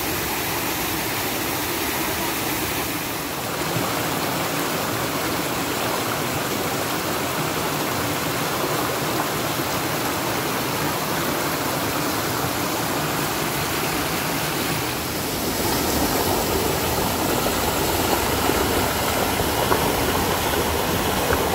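Waterfall and stream water rushing steadily, an even hiss of falling and flowing water that swells a little about three-quarters of the way through.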